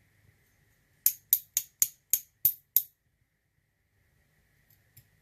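Seven quick, sharp metallic clicks in under two seconds, then quiet with a few faint ticks near the end: a small lock pin being knocked and rattled out of a euro cylinder's core.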